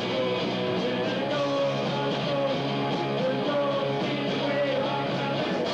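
A live rock band plays: electric guitar, bass guitar and drums, with a wavering high note held over the top. The low bass notes stop just before the end.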